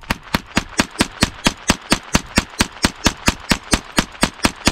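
Ruger 10/22 semi-automatic .22 LR rifle firing CCI Blazer 40-grain round-nose rounds in rapid, steady semi-auto fire, about four to five sharp shots a second, more than twenty in all. Every round goes off with no misfire, which shows the ammunition is sound.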